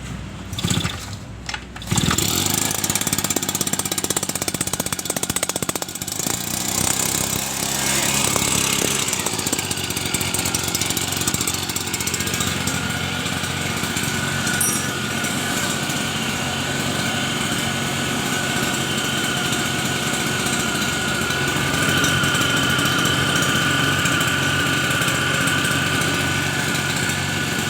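Tasco MD-150 mist blower's two-stroke engine starting about two seconds in, then running continuously. Its speed shifts during the first ten seconds or so, then it holds steady.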